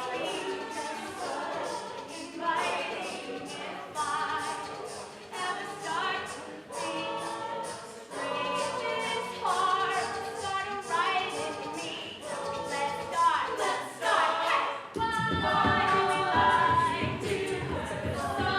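A cappella vocal group singing in close harmony, over a steady beat. About fifteen seconds in, a fuller low part comes in beneath the voices.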